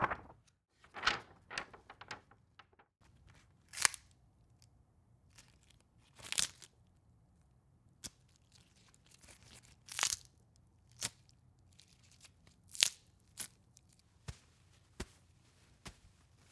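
Foley recording of paper being torn and crumpled: about fifteen short, separate rips and crinkles at uneven intervals, with quiet gaps between them, in a small room.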